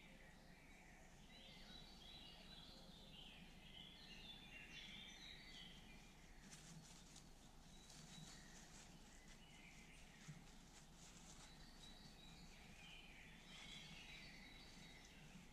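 Faint woodland birdsong: several small birds chirping and singing in short high phrases, strongest early on and again near the end, over a low steady background hum. Faint soft crackles come in around the middle.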